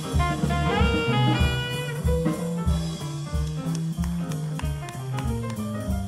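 Small jazz combo playing live: upright bass walking about two notes a second under drum kit, with saxophone and brass lines on top.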